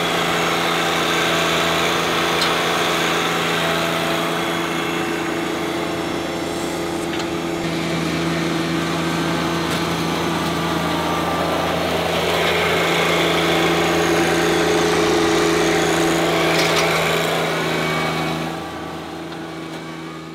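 John Deere compact tractor engine running steadily at working speed while pulling a 3-point dethatcher over a lawn. It fades out near the end.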